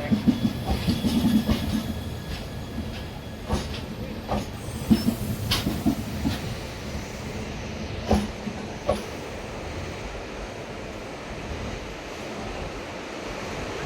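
A departing express passenger train rolling on the track, a steady rumble with scattered knocks and clicks of wheels over rail joints. It eases off over the first couple of seconds as the train pulls away.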